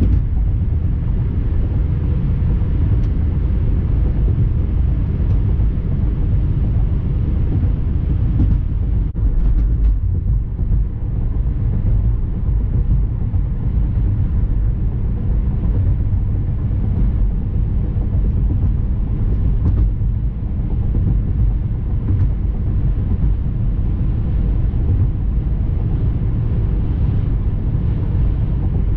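Steady low rumble of a moving vehicle: road and engine noise.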